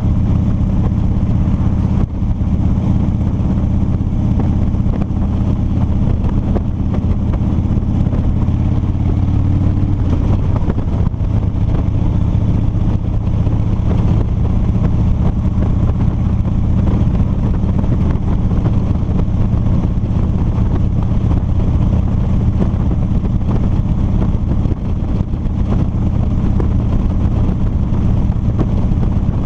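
2007 Harley-Davidson Street Bob's V-twin engine running at a steady cruise, heard from a helmet-mounted camera. The engine note is even for about the first ten seconds, then turns rougher and less steady.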